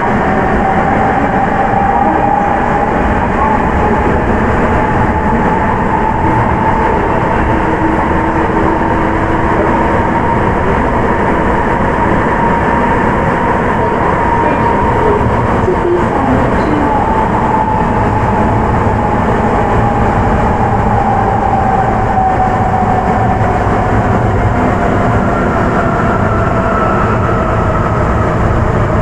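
Sapporo Municipal Subway 9000-series train running between stations, heard on board: a steady heavy rolling rumble under the Hitachi IGBT inverter and traction-motor whine. The whine rises in pitch over the first several seconds, holds, then falls through the second half as the train eases off, and a higher whine joins near the end.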